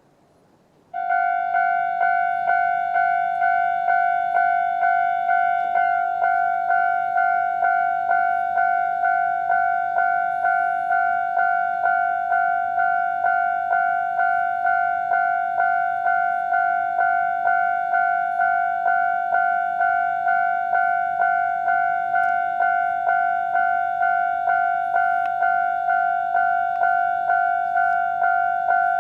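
Japanese railway level-crossing electronic warning bell starts about a second in and keeps ringing a repeated two-tone ding at a steady beat. It is the crossing's normal alarm and signals an approaching train.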